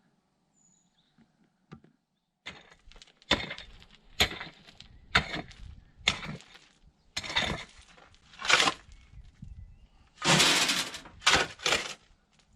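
Cat crunching on a freshly caught mouse: irregular crunches about once a second, starting a couple of seconds in, with a longer, louder one near the end.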